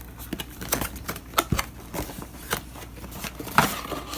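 A small cardboard box and its packaging being opened and handled by hand: irregular clicks, taps and short rustles.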